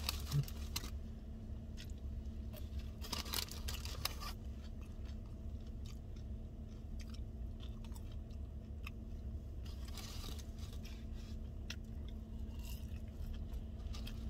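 A person chewing food with crisp crunching, coming in a few clusters.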